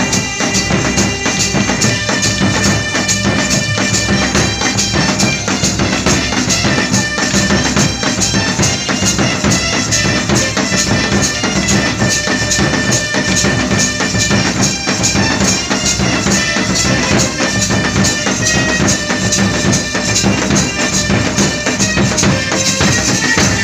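Live band music: dholak and other drums beaten in a fast steady rhythm, with a reedy wind instrument holding long notes over them.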